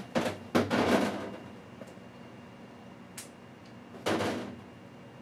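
Oil-painting supplies being handled at the palette while more paint is fetched from a tube: a sharp click, then about a second of noisy handling sounds, a light tap about three seconds in, and another short burst about four seconds in.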